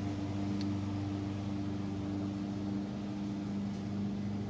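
A steady, even machine hum with a low drone and a few fixed tones, as from a running motor.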